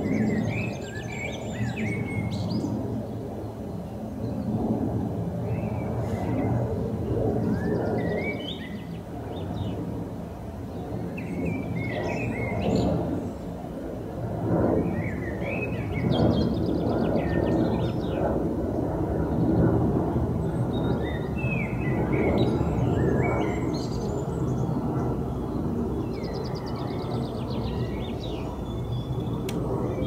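Low rumble of an airplane passing, swelling and fading in waves, with a steady low hum under it. A songbird sings short phrases every few seconds over it.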